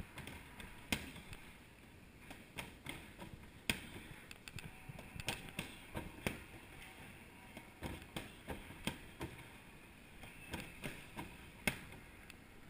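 Boxing gloves punching a freestanding heavy bag in quick combinations of jab, cross, hook and backfist: a run of short thuds a few a second, some louder than others.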